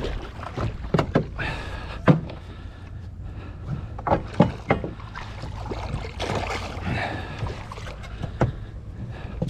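Knocks and clatter as a landing net and fishing rod are handled against a boat's deck and gunwale. A hooked snook splashes at the surface beside the hull. All of this sits over a steady low rumble.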